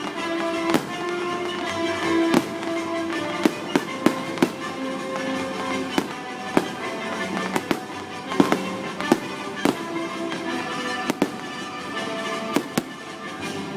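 Fireworks going off in more than a dozen sharp bangs at uneven intervals, over music with held notes.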